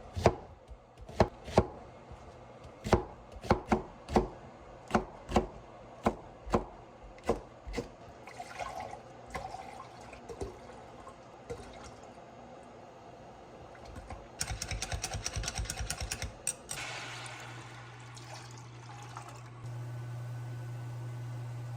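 Kitchen food preparation: a knife chopping on a cutting board in irregular strokes, then a quick run of rapid knocks, then liquid being poured. A steady electric hum with a faint high whine starts near the end.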